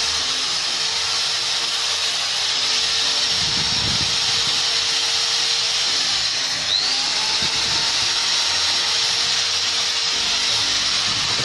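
Hitachi D10VT 10 mm corded electric drill running free at full speed with no bit load, held on by its lock-on switch rather than the trigger. It is a steady high motor whine that briefly dips and picks up again about seven seconds in.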